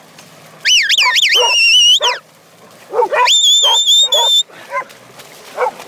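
Shepherd's whistle commands to a working sheepdog: two high-pitched whistles, each wavering up and down and then held steady. The first comes just under a second in, the second about three seconds in, with short lower animal calls between and after.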